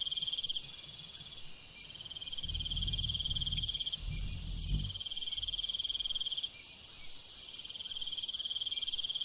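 Night jungle insect chorus: a dense, continuous high shrill with a pulsing trill that repeats in phrases of about two seconds. A soft low rumble comes in midway, and the highest part of the chorus cuts off suddenly near the end.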